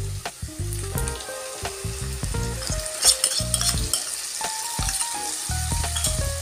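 Sliced onions sizzling and crackling as they fry in hot oil in a kadai. About three seconds in the crackling gets sharper as masala paste is poured into the oil.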